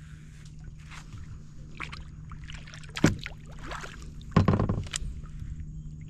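Knocks and small water sounds from a plastic kayak being handled on the water. There is one sharp knock about three seconds in and a louder clatter about four and a half seconds in.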